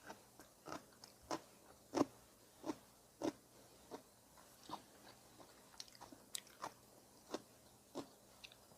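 Close-miked chewing of udon noodles and rice cake, with wet mouth smacks and clicks coming about every two-thirds of a second.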